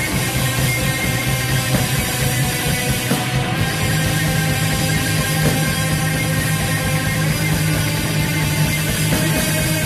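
Post-black metal band playing live at full volume: a dense, unbroken wall of distorted guitars over bass and drums, heard through a handheld recording from the crowd.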